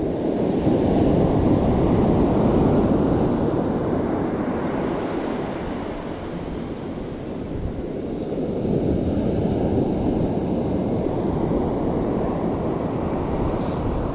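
Sea surf washing in, mixed with wind on the microphone: a steady rushing roar that swells about a second in and again about eight seconds in.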